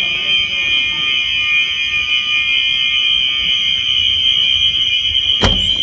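Fire alarm horn sounding continuously, a loud, steady, unbroken high tone, with a single thump about five seconds in.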